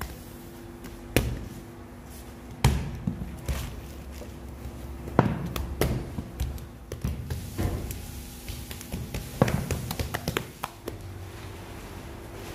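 Irregular thumps and knocks of hand work with bread dough on a bakery work surface, about a dozen in all with uneven gaps, over a faint steady machine hum.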